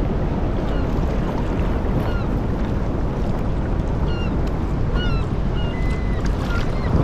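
Wind on the microphone and choppy sea water splashing around a kayak moving through swell, a steady rushing noise. A few faint short high chirps come through it from about two seconds in.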